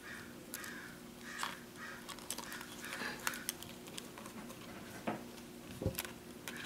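Light clicks and taps of a Syma X5C quadcopter's plastic motor arm and wires being handled, with one low thump near the end. Underneath are a steady low hum and a faint mid-pitched sound repeating about twice a second.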